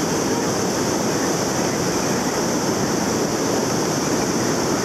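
River rapids rushing: a steady, unbroken roar of white water.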